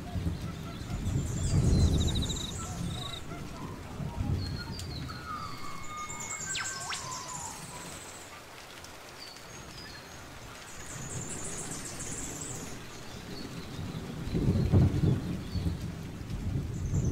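Several birds chirping and trilling, with some whistled calls. Low rumbling gusts of wind hit the microphone about two seconds in and again near the end.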